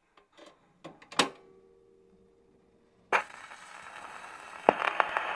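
Intro sound effects: a few sharp clicks in the first second or so, the loudest leaving a short fading hum. About three seconds in, a steady hiss starts suddenly, with scattered crackling clicks over it.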